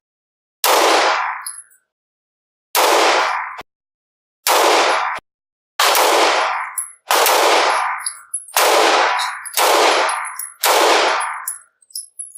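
Eight gunshots fired one at a time at a slow, even pace, each with a ringing, echoing tail, followed near the end by a few light metallic ticks.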